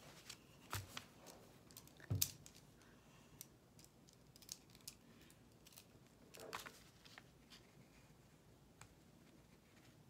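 Faint scattered clicks and knocks of small objects being handled on a tabletop, with a soft thump about a second in and a sharper knock about two seconds in.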